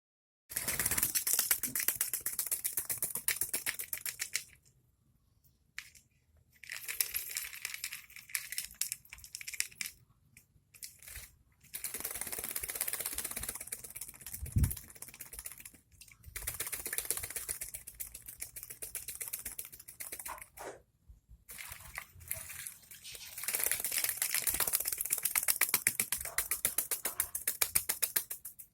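A parrot bathing: spells of rapid wing-fluttering and splashing a few seconds long, broken by short pauses.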